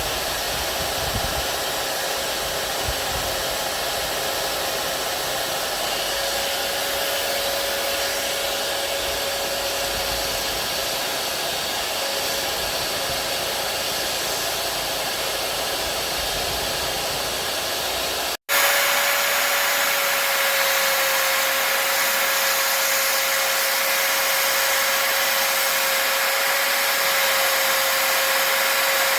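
Electric drill with a sanding disc running steadily against a wooden hiking stick: a constant motor whine over a hiss. It cuts out briefly about eighteen seconds in, then carries on a little louder.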